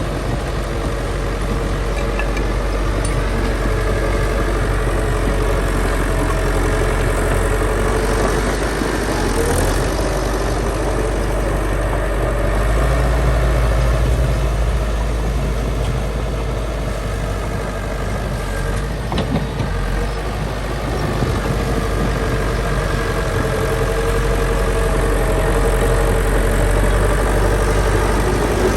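Diesel engines of heavy earthmoving machinery running steadily, with a single sharp knock about two-thirds of the way through.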